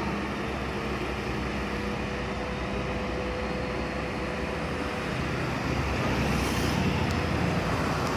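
Diesel bus engine pulling steadily up a steep climb, over road noise, growing louder about six seconds in as it draws closer.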